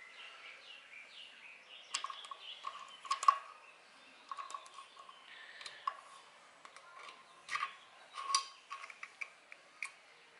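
Scattered light metallic clicks and taps of a hand tool and small metal parts as the hook retainer mount is worked loose and removed from a Prodigy longarm quilting machine's hook assembly. The sharpest click comes about three seconds in.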